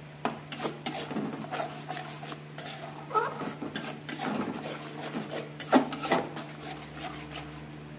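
Metal spatula scraping and stirring thick masala paste around an aluminium kadai: irregular scrapes and clatters against the pan, the loudest knock a little before six seconds in.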